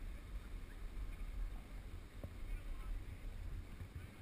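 Wind buffeting an action camera's microphone as its wearer rides down a groomed snow slope, with the hiss of sliding over packed snow: a steady low rumble.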